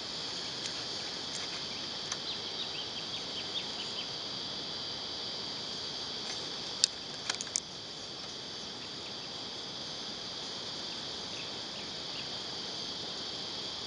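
Insects droning steadily at a high pitch, with a few short chirps in the first few seconds. A quick cluster of sharp clicks about seven seconds in is the loudest sound.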